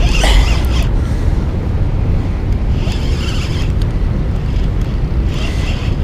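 Wind buffeting the camera microphone: a loud, steady low rumble, with a few short rises in hiss.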